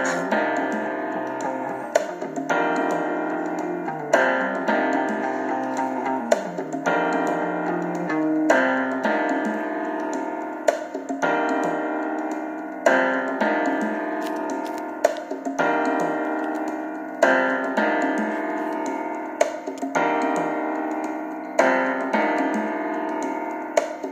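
Piano playing an instrumental passage of the song, a chord struck about every two seconds and left to ring out. It cuts off right at the end.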